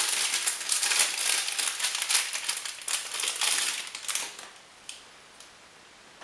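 Plastic wrapper of a ration cracker packet crinkling as it is handled, for about four seconds, then it stops.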